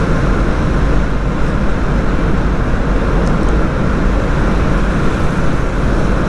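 Steady rumble of wind and traffic while riding a motorcycle through a road tunnel, strongest in the low end.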